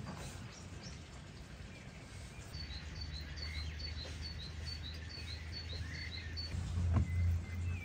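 A songbird sings a run of about a dozen short, high, repeated chirps, about three a second, with a few lower chirps between, over a steady low outdoor rumble. A single sharp knock comes near the end.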